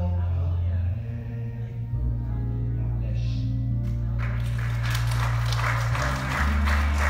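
Church music with long held low bass chords that shift every second or two. From about four seconds in, the congregation breaks into applause and clapping over it.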